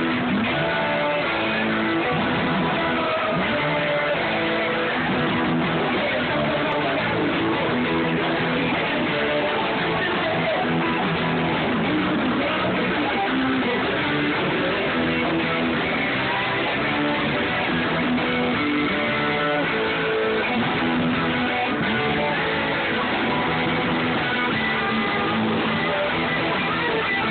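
Live rock band playing a song: electric guitar to the fore over a drum kit.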